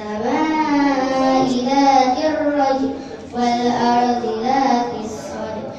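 A child's voice chanting the Qur'an in a melodic qiroah style, holding long, wavering notes, with a short breath about three seconds in.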